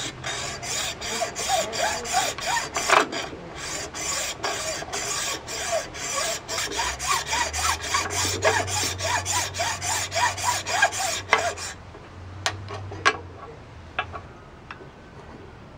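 Hand hacksaw cutting through a block of soft carving stone, a quick, even run of rasping back-and-forth strokes that stops about twelve seconds in. A few light knocks follow as the cut stone is handled on the bench.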